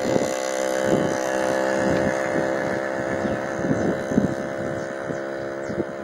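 A motor engine running steadily at a constant pitch, with irregular low thumps of wind on the microphone.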